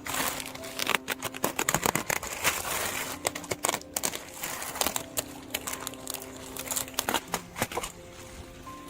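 Crinkling, rustling handling noise broken by many sharp clicks and snaps, irregular throughout.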